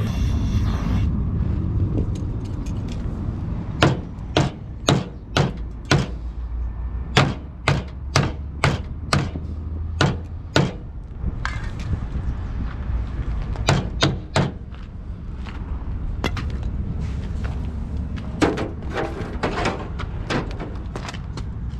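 Runs of sharp knocks, two or three a second, over a steady low engine rumble.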